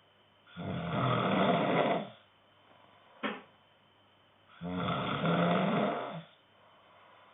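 A man snoring in his sleep: two long snores about four seconds apart, each about a second and a half long, with a short click between them.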